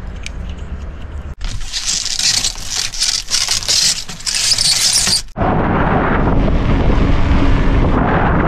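A few light clicks over a low hum. Then the crackling rustle of the plastic shrink-wrap on a pack of water bottles being handled. Then, from about halfway in, a steady rush of wind on the microphone with a low rumble of tyres and traffic while cycling along a road.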